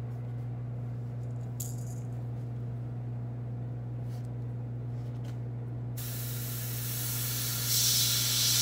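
Airbrush hissing as it sprays paint onto a lure through a scale stencil. It starts about six seconds in and gets louder near the end. Under it runs a steady low hum from the airbrush compressor, with light handling rustles of the stencil early on.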